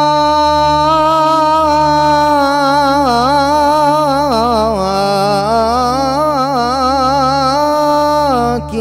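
A solo voice singing an Arabic nasheed, holding one long steady note, then about three seconds in breaking into a wavering, ornamented run that slides up and down in pitch, over a steady low hum; the phrase ends just before the end.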